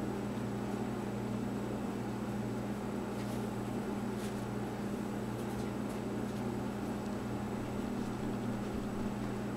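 Steady low machine hum under a constant hiss, with a few faint ticks about three to six seconds in.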